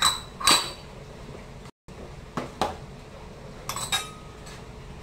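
A metal spoon clinking and scraping against small bowls while spice paste is scooped out, a handful of sharp clinks with a short ring. The loudest comes about half a second in, with more pairs of clinks later on.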